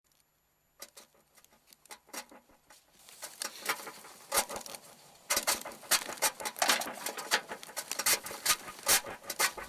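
Irregular crackling clicks, a few scattered ones at first, thickening from about three seconds in into a dense crackle.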